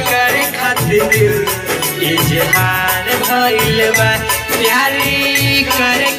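A song in Indian folk style with a steady beat and a shaker-like rattle, and a singing voice carrying the melody over it.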